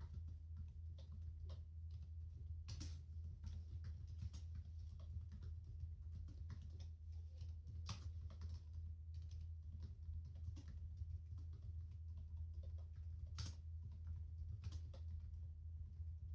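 Typing on a computer keyboard: an irregular run of soft key clicks, with a few sharper keystrokes standing out, over a steady low hum.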